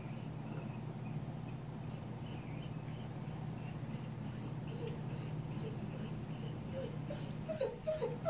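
A dog whining, short high whimpers repeating two or three times a second, with louder yelping cries near the end, over a steady low hum.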